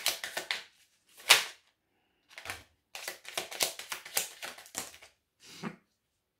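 Deck of oracle cards being shuffled by hand: runs of quick papery clicking with short pauses between, and one sharper slap about a second in.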